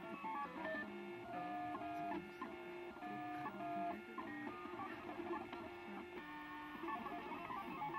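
MakerBot Thing-O-Matic 3D printer printing, its stepper motors whining in steady tones that jump to a new pitch every fraction of a second as the moves change.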